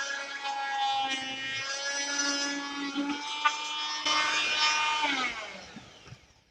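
Chicago Electric corded oscillating multi-tool running with a steady whine while cutting through a wooden 2x4, its pitch wavering a little under load. About five seconds in it is switched off and winds down, the whine falling in pitch and fading out.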